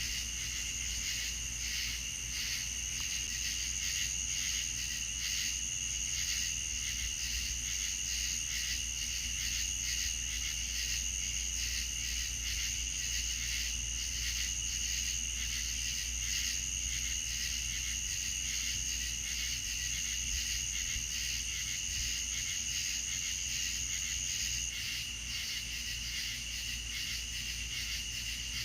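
Night-time insect chorus: crickets chirping in regular pulses about twice a second, over a continuous high-pitched insect trill that stops near the end.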